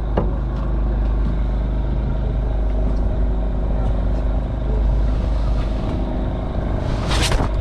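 Engine running steadily with a low, even hum. Near the end there is a short, loud, noisy burst.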